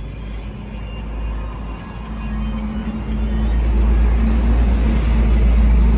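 Tractor diesel engine running steadily, a low rumble with a constant hum that grows louder from about two seconds in.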